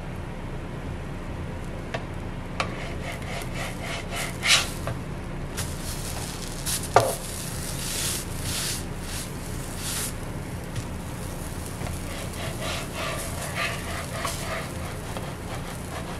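Nylon spatula scraping across a nonstick electric griddle and sliding under pancakes to flip them, with sharp clicks and taps of the spatula on the griddle surface, the loudest about seven seconds in. The pancakes sizzle on the hot griddle.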